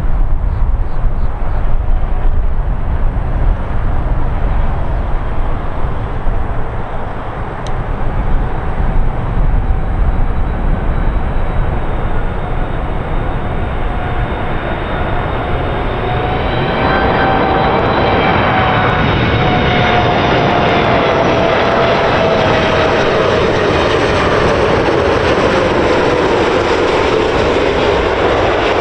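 Boeing 747 jet engines on landing approach: a low rumble that grows louder about halfway through, with a whine that falls in pitch as the aircraft passes.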